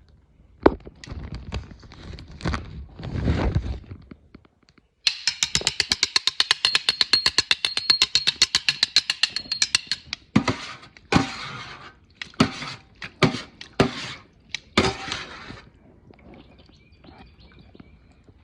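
Kitchen handling sounds: a few knocks and thuds, then about five seconds of rapid, evenly spaced tapping at around ten a second, followed by several separate sharp knocks.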